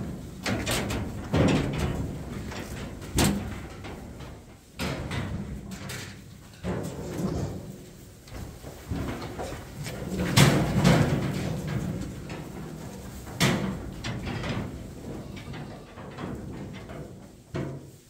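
Irregular bangs and clanks of sheep pen gates and panels as a flock is sorted, a sharp strike every second or few, the loudest about ten seconds in.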